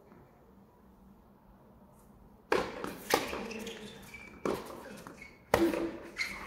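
Tennis racket strikes on the ball during a rally: quiet for the first two and a half seconds, then a string of sharp hits about a second apart.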